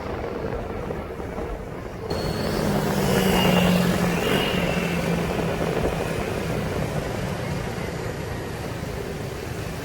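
Motorcycle riding through city traffic: engine and wind noise, with a louder engine drone that swells about three seconds in and then fades.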